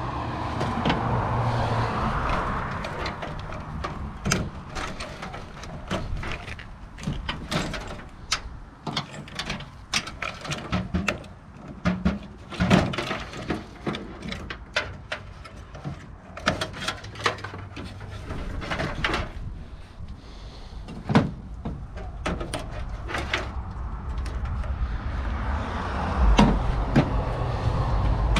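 Hands dismantling a desktop computer tower: irregular clicks, taps and knocks of metal and plastic parts being handled and pulled apart, over a low hum.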